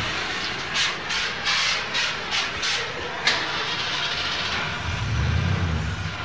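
Auto repair shop ambience: a quick run of short hissing bursts over steady workshop noise, then a low rumble starting about five seconds in.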